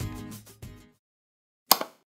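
Background music with a beat about every 0.6 s that cuts off just under a second in, leaving dead silence. Near the end comes a brief sound effect from the on-screen subscribe-button animation.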